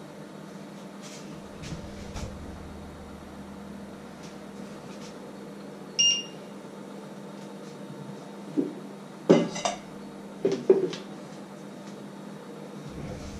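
A short electronic beep from a glass-ceramic hob's touch control as a finger presses it, about six seconds in. Then comes a cluster of metallic clanks, as a stainless steel bowl is set down on the counter, over a faint steady hum.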